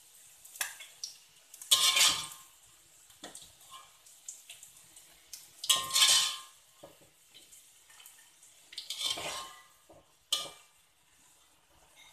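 Metal slotted spatula scraping and clanking against a metal wok while fried tempe pieces are scooped out onto a plate. There are about six knocks and scrapes a second or more apart, and the two loudest ring briefly.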